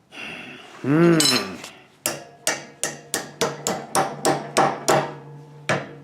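Blacksmith's hammer striking steel on an anvil in a quick, even run of about a dozen blows, about three a second, each with a short metallic ring.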